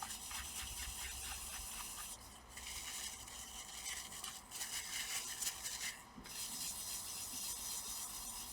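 Cotton swab rubbing old thermal paste off a laptop cooler's contact plates: a soft, scratchy scrubbing with short pauses about two and six seconds in.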